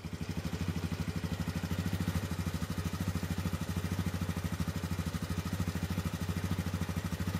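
ATV engine running steadily at low speed, with an even pulse of about a dozen beats a second and no revving.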